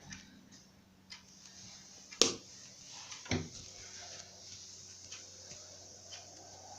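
A Venti-Delta New Delta Light ceiling fan: two sharp clicks, then from just past the middle a faint whine that rises steadily in pitch as the fan's motor spins up, over a low steady hum.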